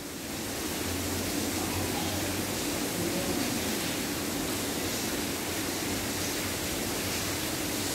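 Steady, even hiss of background noise with a faint low hum underneath.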